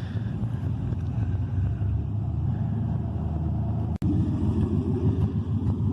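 2017 Chevrolet Camaro SS's 6.2-litre V8 running through open headers, its exhaust dumped under the car with the catalytic converter removed. It breaks off very briefly about four seconds in and comes back louder.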